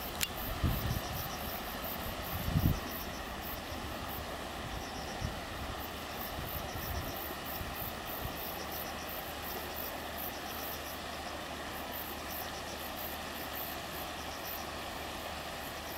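Tail end of a container freight train rolling away on the track: a few low wheel thumps over the rail joints in the first three seconds, then a steady distant rumble of the receding wagons.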